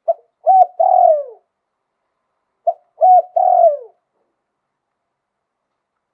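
Spotted dove cooing two phrases about two and a half seconds apart, each a short note then longer coos ending in a falling note. This is the 'liu tan' cooing pattern that Thai dove keepers prize.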